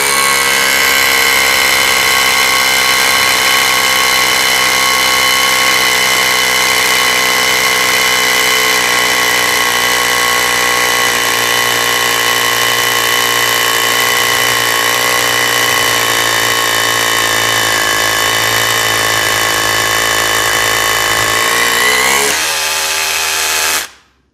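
Makita DHR243 18V cordless rotary hammer drilling a 14 mm hole into concrete with an SDS-plus bit, running steadily under load. Its pitch rises a little near the end, then it stops.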